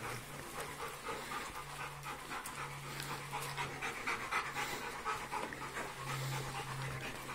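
A dog panting quickly and rhythmically, with a low steady hum underneath.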